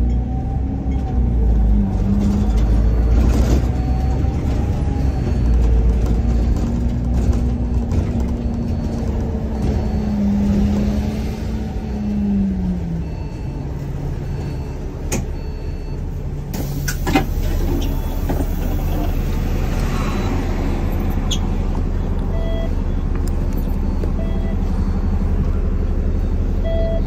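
Bus running, heard from inside the cabin: a steady low rumble with a wavering engine hum that drops away about halfway through. Two sharp knocks come a couple of seconds apart, and faint short beeps repeat in the background.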